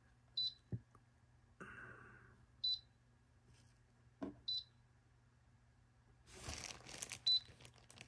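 Humidifier control panel beeping as its buttons are pressed: four short high beeps a couple of seconds apart, with a brief rustle shortly before the last one.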